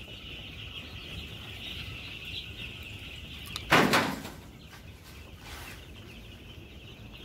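A large flock of young chicks peeping continuously, a dense high-pitched chorus of many small peeps that is fuller in the first half. About four seconds in, a brief loud rustling noise cuts across it.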